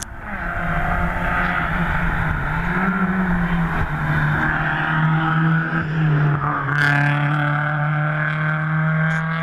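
Rally car engine running hard on a hillclimb stage. Its pitch holds fairly steady, with a brief rise and fall about three seconds in.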